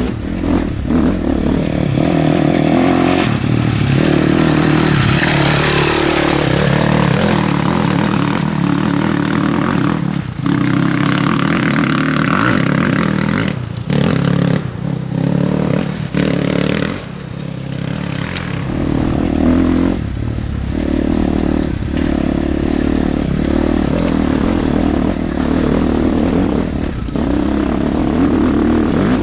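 Motorcycle engine running and revving up and down over rough ground, with clattering and scraping.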